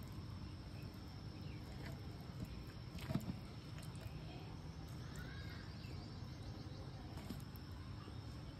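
Quiet outdoor background: a steady low rumble of ambient noise with a few faint bird chirps, and one soft knock about three seconds in.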